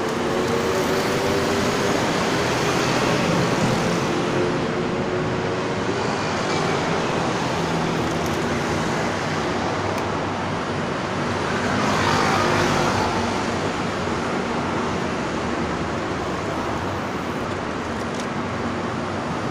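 Steady city road traffic noise from passing vehicles. An engine's steady hum sits under it for the first several seconds, and one vehicle passes louder about twelve seconds in.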